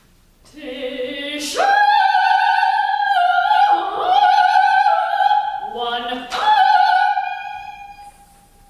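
A soprano singing unaccompanied in operatic style. She rises from low notes to a long high note with vibrato, dips low and climbs back, then drops low again and leaps up to a final high note that fades away near the end.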